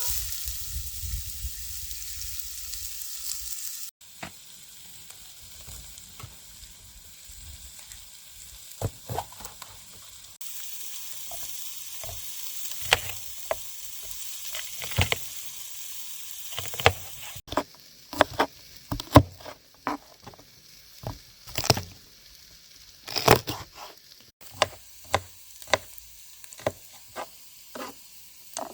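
Food sizzling in a hot frying pan, with utensil clicks and knocks against the pan as it is stirred, thickest in the second half. The sizzle changes level abruptly several times.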